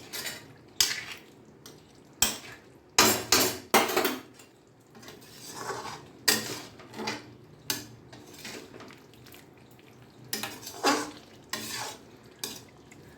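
A metal utensil stirring thick green jackfruit curry in a pan just after ghee has gone in, scraping and clinking against the pan at irregular intervals, with a cluster of knocks a few seconds in and again near the end.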